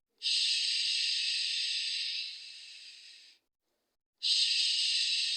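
A looping 'shh' sound played as a soothing sound: long hushing hisses, each strong for about two seconds and then tailing off. Almost a second of silence follows the first, and the next hiss starts near the end.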